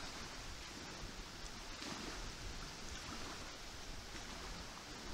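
Steady outdoor background hiss of wind and water, with no distinct events.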